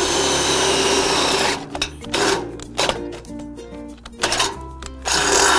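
Makita 18V cordless drill with a 10mm bit boring through a steel crossbeam, in two bursts: one for the first second and a half, another starting about five seconds in. Scattered clicks and knocks in between.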